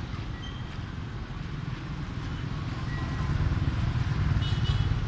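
Low outdoor background rumble that grows louder after about three seconds, with a short faint high chirp near the end.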